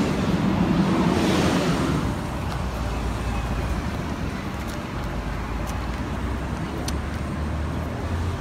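City street traffic noise: vehicle engines and tyres running on the road, louder for the first two seconds as a vehicle goes by close, then a steady rumble.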